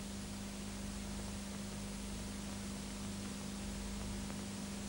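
Steady hiss with a steady low hum and nothing else: the background noise of an old film soundtrack.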